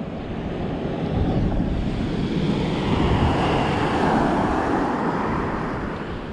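Wind buffeting the microphone over surf washing on a shingle beach; a rush of noise swells through the middle and fades again near the end.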